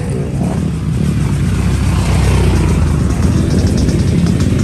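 Several motocross dirt bike engines running as the bikes ride up a dirt lane toward the listener, growing slightly louder.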